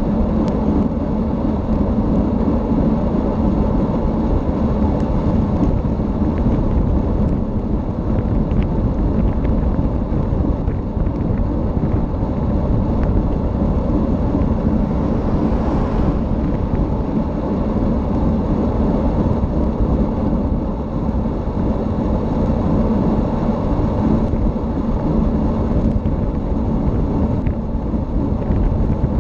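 Steady rush of wind on the microphone mixed with tyre and road noise from travelling fast downhill on asphalt, with a low hum running underneath.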